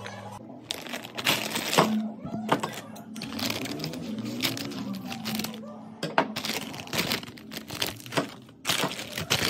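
Crinkly Doritos chip bag being handled and cut open with scissors, with irregular sharp crackles and rustling of the plastic packaging.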